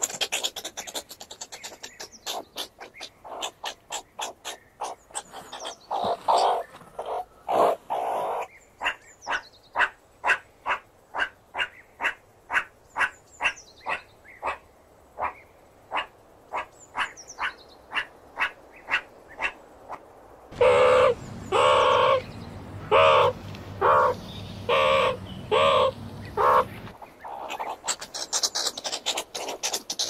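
Meerkat calling in a rapid run of short, repeated calls, about two a second. About two-thirds of the way through, a louder, slower series of calls comes in over a low hum.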